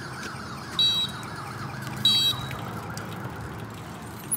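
Short, high electronic chirps, each a pair of steady tones, sounding twice about a second and a quarter apart, like an alarm or electronic horn beeping.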